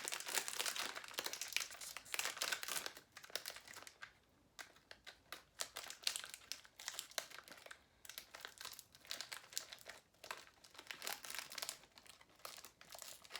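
Plastic snack packaging crinkling and rustling as it is handled and opened, in irregular bursts with a short pause about four seconds in.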